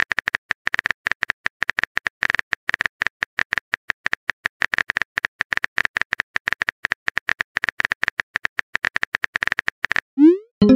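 Rapid typing-click sound effects from a texting-story app, several clicks a second, as a message is typed out letter by letter. Near the end comes a short rising chirp, the app's message-sent sound.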